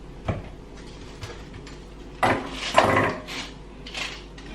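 A kitchen knife cutting limes and lemons in half on a cutting board: a light click, then two louder cuts a little past the middle.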